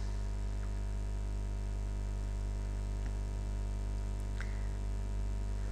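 Steady low electrical hum with a faint hiss underneath, like mains hum in the recording; no other sound stands out.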